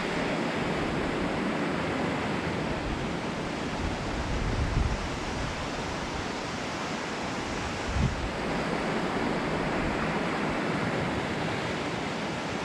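Waterfall rushing steadily into a pool, a constant wash of water noise. Two brief low thumps hit the microphone, one a little after four seconds in and one at about eight seconds.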